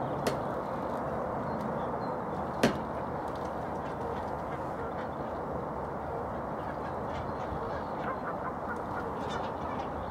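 Steady background rush with faint duck quacks late on. Two sharp clicks come in the first three seconds; the second is the loudest sound.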